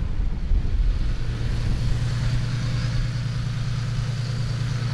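Nissan 370Z's VQ-series V6 with a muffler-deleted exhaust, running steadily at low revs just after a hard jump-start, with a steady low drone.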